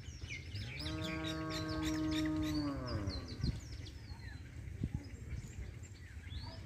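A cow lowing once for about two seconds, a steady low moo that falls in pitch at the end, over small birds chirping. Two short knocks follow a little later.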